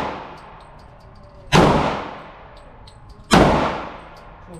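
Two shots from a .40-calibre pistol, about 1.8 seconds apart, each followed by a long echoing tail in an indoor range. The tail of an earlier shot is fading at the start.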